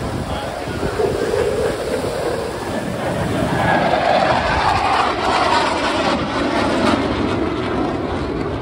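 Blue Angels F/A-18 Super Hornet jets passing by: a loud jet rumble that builds to its loudest around four to five seconds in, then eases off.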